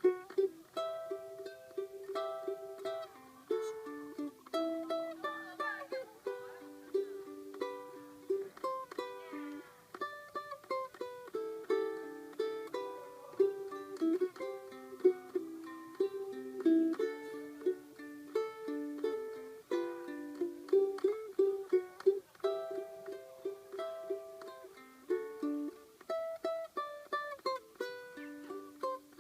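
Ukulele playing a melody in plucked notes, several notes a second over sustained chord tones.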